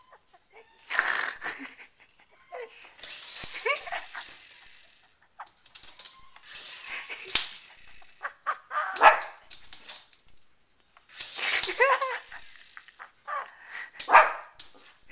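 Small dog barking and yipping in repeated short bouts every second or two, its pitch sliding. The loudest barks come about two-thirds of the way through and near the end.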